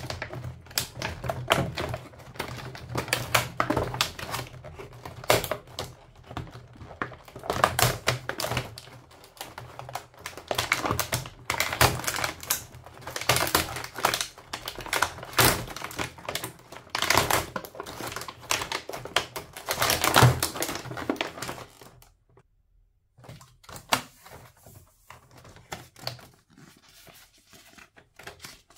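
Small plastic toy food pieces being lifted out of a clear plastic blister tray and clacking against it and each other: a fast, irregular run of small clicks and clatter. About 22 seconds in it turns much quieter, with only a few scattered clicks, as a paper takeout bag is handled.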